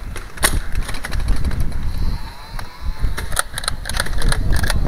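Motorized Nerf Barricade flywheel blaster whirring and firing darts, heard as a run of sharp clicks over a low rumble.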